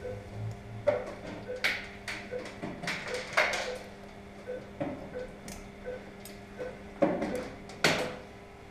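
Anaesthesia patient monitor beeping regularly, about one and a half beeps a second in time with the anaesthetised dog's pulse, over a steady electrical hum. Sharp clicks of surgical instruments (needle holder and forceps) being worked while the wound is sutured, a few of them louder than the beeps.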